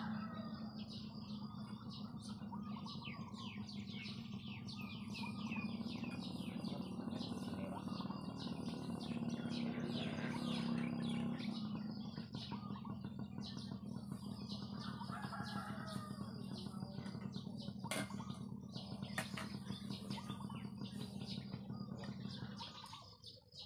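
Many small birds chirping and twittering together, with a few longer calls now and then. A steady low hum runs underneath and stops shortly before the end.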